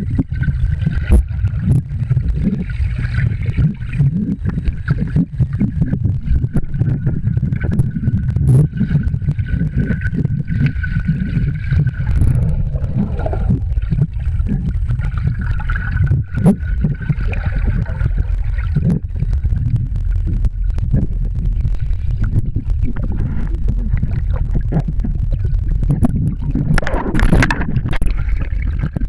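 A waterproof camera recording underwater in a swimming pool: a dull, steady low rumble of water against the housing, with scattered knocks and clicks and a faint steady whine. A louder rush of water comes near the end.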